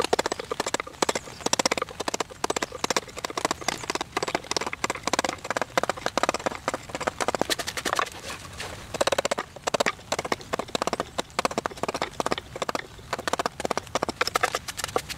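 Carving gouge paring a carved wooden dish by hand: runs of quick, short cutting clicks and scrapes in bursts with brief pauses. This is the edges being smoothed with the gouge before sanding.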